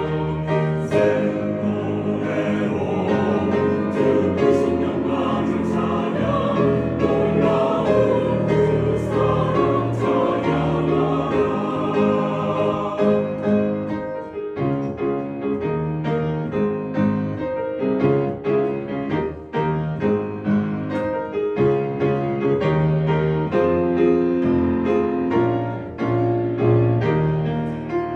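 Mixed church choir of men and women singing a hymn in harmony with piano accompaniment. About halfway through the voices thin out and the piano notes come forward.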